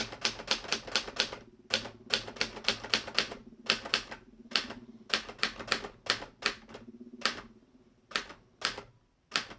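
A 1970 Adler Tippa 1 manual portable typewriter being typed on: a quick run of key strikes, about three to four a second, as the alphabet is typed out. The run stops about three-quarters of the way through, and three single strokes follow near the end.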